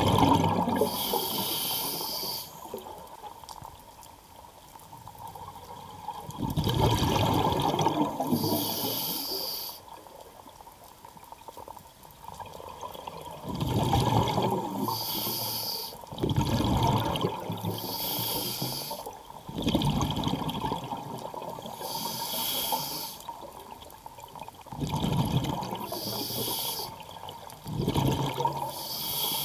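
Scuba diver breathing through a regulator underwater, about seven breaths that repeat every three to six seconds. Each breath gives a burst of exhaust bubbles and a hiss from the regulator, with quieter gaps between breaths.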